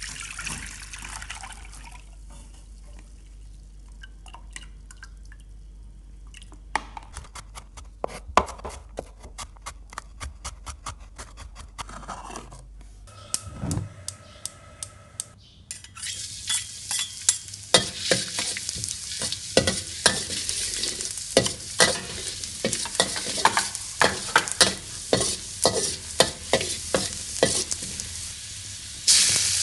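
Water from soaked glass noodles pours through a stainless mesh strainer, followed by a run of sharp clicks and a gas burner being lit. For the second half, chopped garlic sizzles in oil in a wok while a metal spatula scrapes and clinks against the pan several times a second. The sizzle jumps louder at the very end.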